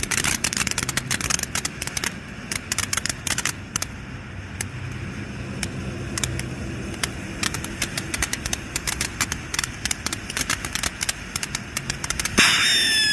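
Consumer fountain firework burning: a hissing spray full of rapid crackling pops, thick at first and thinning out. Near the end a loud titanium whistle starts and slides slowly down in pitch.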